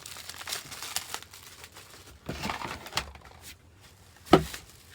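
Packaging being handled during an unboxing: crinkling and rustling in a couple of spells, with one sharp knock about four seconds in.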